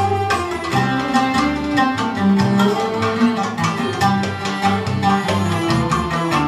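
Live acoustic ensemble playing Gypsy and oriental-style music, with plucked and bowed strings over an upright double bass line and percussion strokes keeping an even beat.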